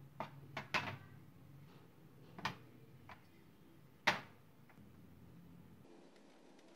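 Rusty steel foot-pump parts (the pedal frame and the pump barrels) being set down in a galvanized metal tray: about six light metallic knocks and clacks, the loudest just after four seconds in as a barrel is put down.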